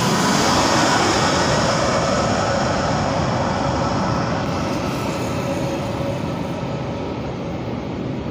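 Airbus A320 jet engines passing low overhead on landing approach. The sound is loudest about a second in, then a whine falls steadily in pitch and the rumble slowly fades as the airliner moves away.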